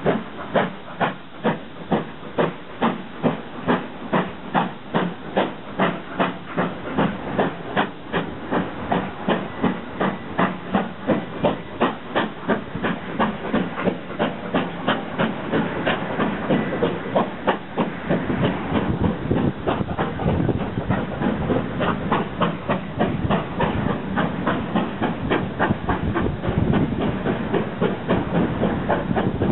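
Steam locomotive working a passenger train, its exhaust chuffing in a loud, even beat over steam hiss. The beats come about two a second at first and quicken in the second half as the engine picks up speed.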